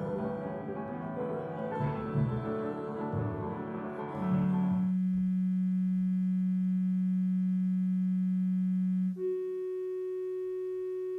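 Instrumental music: a few seconds of busy piano-led playing, then a steady, held electronic tone from about four seconds in that jumps to a higher held tone about nine seconds in. These are the sine tones of a composed backing track that change with each new camera shot.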